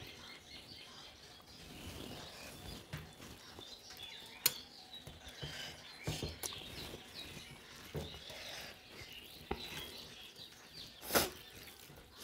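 Eating by hand at steel plates: fingers mixing rice and tearing roti, with mouth sounds and several sharp clicks of fingers on the metal plates, the loudest near the end. Faint chirping runs underneath.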